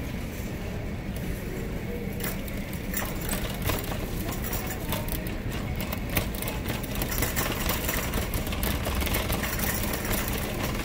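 Shopping cart rolling on a hard store floor, its wheels and wire basket rattling in a dense run of clicks over a steady low hum.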